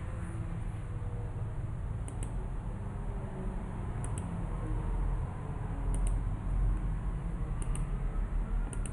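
Room tone: a steady low rumble with hiss, and faint light double ticks about every two seconds.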